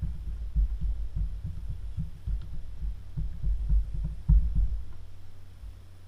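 Dull low thuds from fingers pressing the silicone rubber keys of a 4x4 button pad, in a quick irregular run, over a steady low electrical hum.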